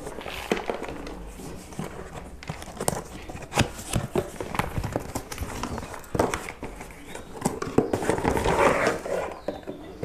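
Cardboard box and packaging being handled and opened by hand: scattered taps and clicks, with a stretch of rustling near the end as the hair dryer is pulled out.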